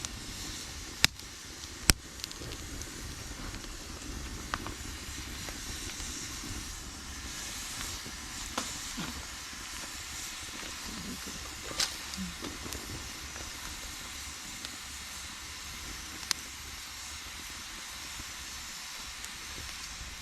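Wood campfire burning with a steady hiss, broken by a handful of sharp, loud crackling pops from the burning wood.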